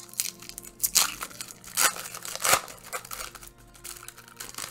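Plastic wrapper of a 1994 Topps Stadium Club baseball card pack being torn open and crumpled by hand, in a few sharp bursts: about a second in, just under two seconds in, and about two and a half seconds in.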